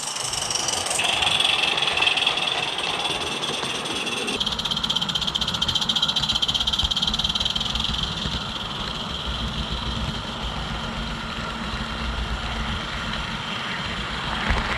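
Small live-steam garden-railway locomotive running along its track, heard close up from a camera riding on the engine: a steady, fast beat from its steam exhaust and running gear.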